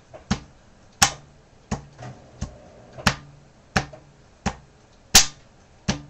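A 2-litre plastic Sprite bottle, held by its label section, striking the top of a person's head. There are about nine sharp hits at a steady pace of roughly one and a half a second, the loudest about five seconds in.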